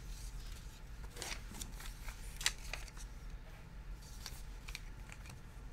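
Light clicks and scrapes of trading cards in plastic top loaders being picked up and handled on a playmat, a few sharper ticks among them, over a low steady hum.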